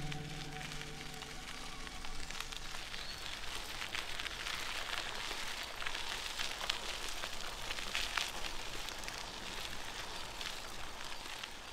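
Bicycle tyres rolling over a gravel path: a steady crunching hiss with scattered small clicks of stones. Background music fades out within the first two seconds.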